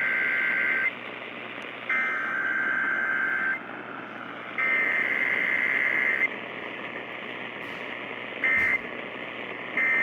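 Emergency Alert System SAME data bursts (the harsh two-tone digital screech) coming over AM radio with background static. There are three long header bursts about a second apart, then short end-of-message bursts near the end.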